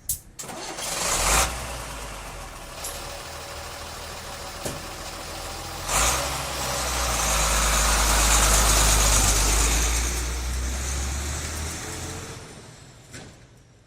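Ten-wheeler truck engine running with a low rumble, a short sharp hiss about a second in; it grows louder to a peak midway, then fades away near the end as the truck moves off.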